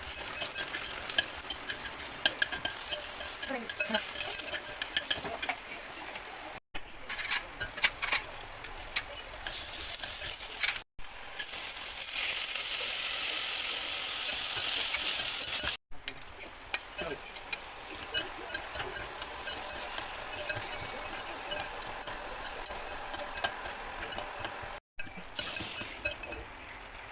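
Food sizzling in a hot pot while a utensil scrapes and clinks against it during stirring, with a steadier, louder sizzle for a few seconds in the middle. The sound drops out for an instant four times, where short clips are joined.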